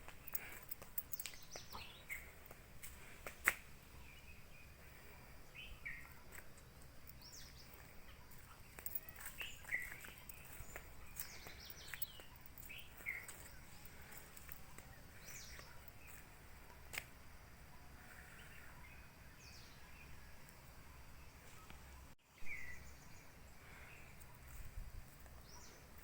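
Several small birds chirping and calling: short scattered chirps and whistled notes, some sliding down in pitch, over a faint low rumble, with a few sharp clicks.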